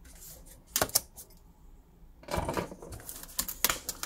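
Stiff clear plastic clamshell packaging around a collector tin being cut and pried open by hand: a couple of sharp clicks about a second in, then rapid crackling and snapping of the plastic from a little past two seconds.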